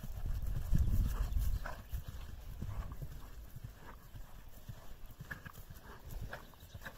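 Exmoor pony cantering on turf: dull, irregular hoofbeats, loudest in the first couple of seconds.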